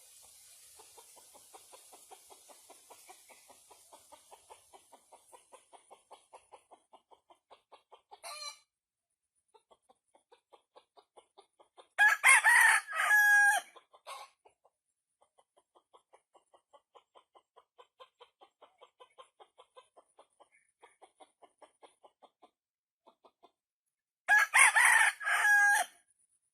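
A rooster crows twice, each crow about two seconds long and about twelve seconds apart. Between the crows a faint, quick, even pulsing runs on and off.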